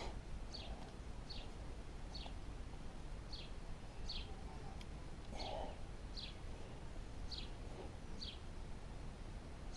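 A bird calling over and over in the background, a short high chirp about once a second, over a low steady outdoor rumble.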